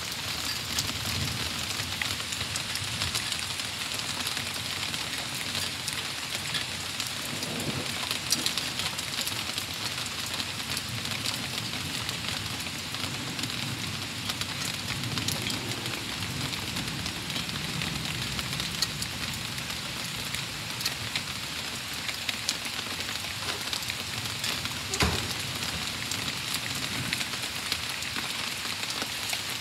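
Steady thunderstorm rain falling, with many sharp drop ticks close by. A low rumble swells and fades now and then, and there is one sharper knock near the end.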